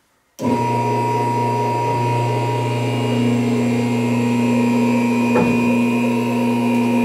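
Electric hydraulic pump motor of a vehicle lift running steadily as it raises a truck, starting suddenly about half a second in: a loud, even hum, with a brief click about five seconds in.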